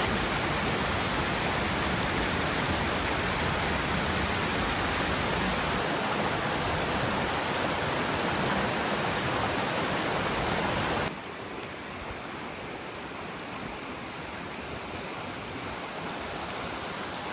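Steady rush of falling water from a waterfall. About eleven seconds in it drops suddenly to a quieter, steady rush.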